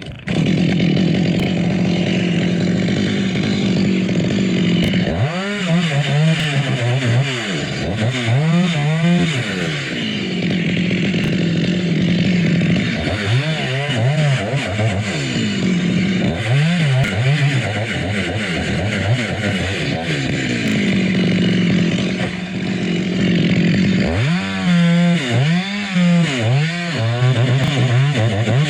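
Two-stroke chainsaw running at high revs. In several spells its engine pitch dips and climbs back up as it works through a coconut palm trunk.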